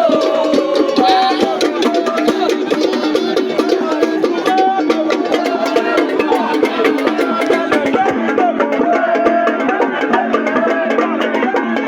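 Music with drums and sharp clicking, wood-block-like percussion in a steady rhythm.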